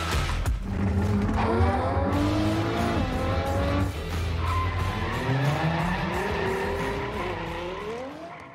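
Car engine accelerating hard, its pitch climbing in repeated sweeps as it revs up through the gears over a low rumble. It fades out at the end.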